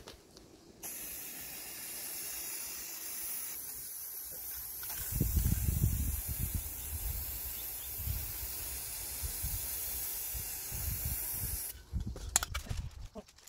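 Aerosol lacquer spray can spraying in one long continuous hiss, starting about a second in and cutting off near the end. A low rumble runs underneath from about halfway through.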